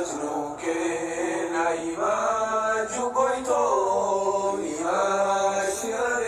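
Chanted vocal music: a voice singing long held notes that slide in pitch.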